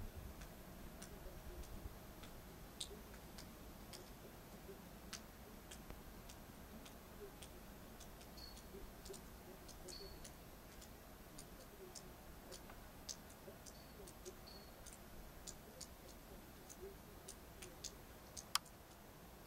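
Faint outdoor winter-night ambience: scattered, irregular small ticks and clicks over a low rumble of wind, with one sharper click near the end.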